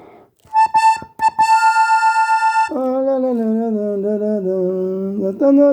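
Diatonic button accordion in G playing a few quick repeated notes and then one held note, on the push of the bellows. From about halfway in, a man hums the melody in a wavering voice.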